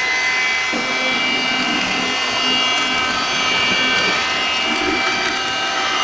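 Kitfort KT-529 cordless handheld vacuum cleaner running steadily as it sucks up spilled soil from a tabletop. It makes an even rush of air over a high motor whine of several steady tones, loud like an ordinary vacuum cleaner.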